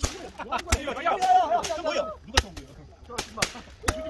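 Small fireworks going off: a string of sharp bangs and pops, about six in four seconds, the loudest a little past halfway and near the end, over faint voices.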